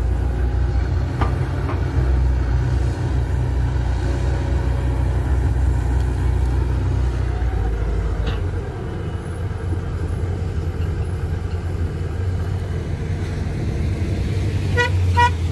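Steady low rumble of heavy diesel machinery running. Near the end comes a vehicle horn giving two short toots.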